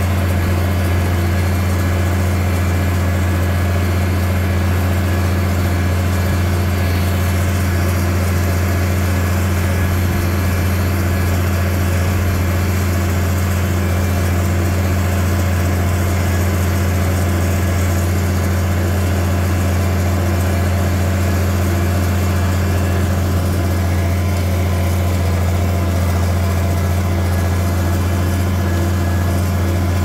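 Farmall 656 tractor engine running at a steady, unchanging speed, a deep even drone.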